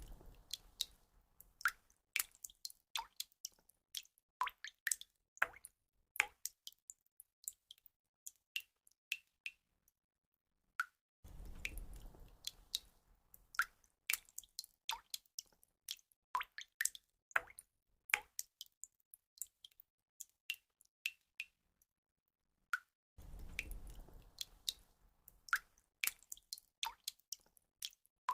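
Water drops falling and dripping irregularly, each a short, separate plink, some with a brief ringing tone. A soft low rushing swell lasting about two seconds comes three times, at the start, around 11 seconds and around 23 seconds, so the sequence repeats about every twelve seconds.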